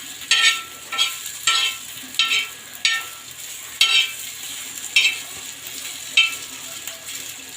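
Crushed ginger frying in ghee on a tawa, with a steady sizzle, while a spatula scrapes and stirs it across the pan in repeated strokes, roughly one every half second to second.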